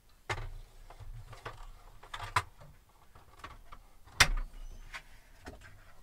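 Dometic RV refrigerator door being lifted off and handled: a series of knocks and clatters, the loudest a sharp knock with a low thud about four seconds in.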